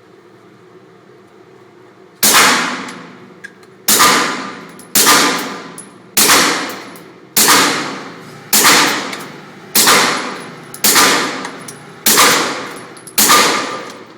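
Ten shots from a suppressed 9mm Glock 17 pistol with an AAC Evo suppressor, fired at an even pace of about one a second. The first comes about two seconds in, and each shot has a ringing tail that fades before the next.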